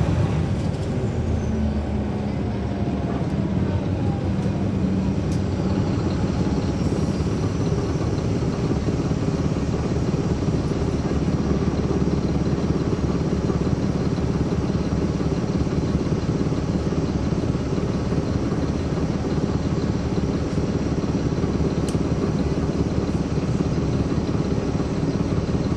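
The Caterpillar C13 ACERT diesel engine of a NABI 416.15 transit bus running steadily, heard from inside the bus. A faint whine slides up and down in pitch in the first few seconds.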